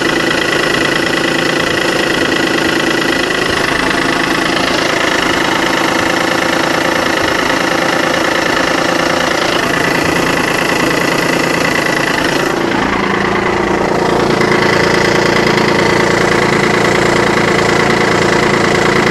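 Mazda RX-8's twin-rotor rotary engine running at idle with a steady high whine and a rattling mechanical noise while the clutch pedal is pressed and released; about twelve seconds in the sound changes and gets a little louder. The owner takes the noise for a failing clutch or thrust bearing.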